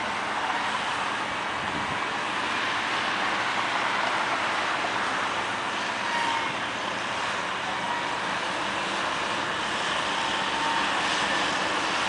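Caterpillar 12M motor grader's diesel engine running steadily under load as its blade pushes and spreads soil. The noise gets a little louder near the end as the machine comes closer.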